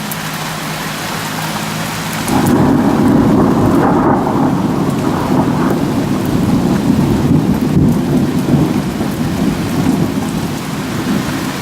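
Heavy rain pouring down, with a long rolling rumble of thunder that sets in about two seconds in and carries on to the end, following a lightning flash.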